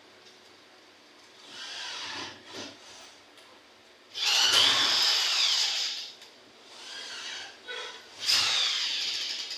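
A handheld power tool, used on an aluminum cabinet panel, runs in several short bursts. The longest and loudest lasts nearly two seconds, with its whine dipping and rising under load.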